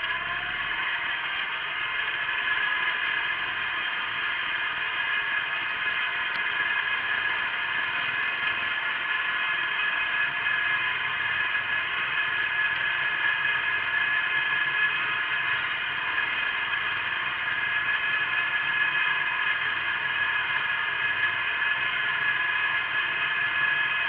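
Wheel Horse garden tractor running steadily under load while pulling a plough, its engine and drivetrain giving an even drone with a high, steady whine over it.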